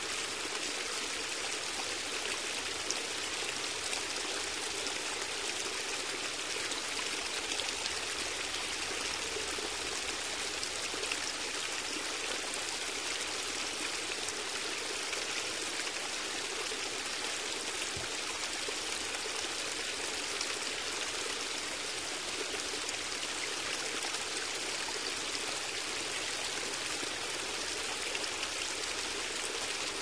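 Steady rushing of running water, like a stream, with an even level throughout and no breaks.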